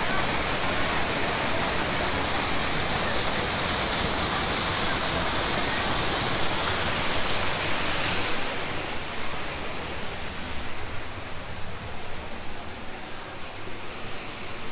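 Rushing water of a waterfall, a steady hiss. About eight seconds in it becomes quieter and duller.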